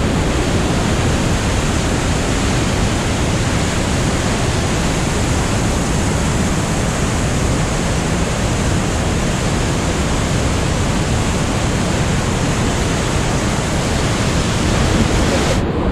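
Loud, steady rush of the Rhine Falls' water, an even roar with no rhythm or tone, cutting off suddenly near the end.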